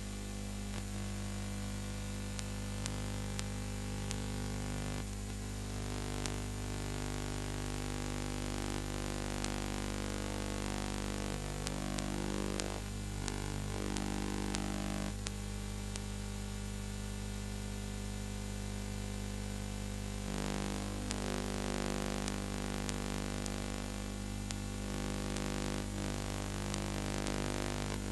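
Steady electrical hum made of several held tones, under a hiss with scattered faint clicks. It is the noise of the transfer or playback, since the film itself has no soundtrack.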